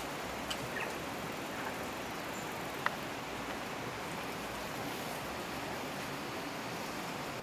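Steady outdoor background noise with a few faint clicks and one sharper click about three seconds in.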